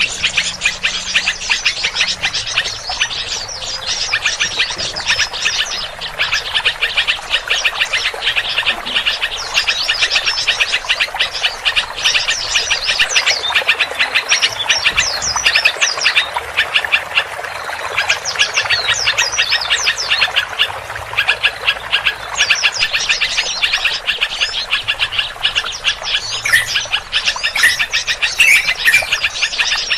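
A dense chorus of many small birds calling at once: rapid, continuous chirps, trills and squeaky notes crowded together, a mixed-species bird-lure recording used to attract birds to a trap.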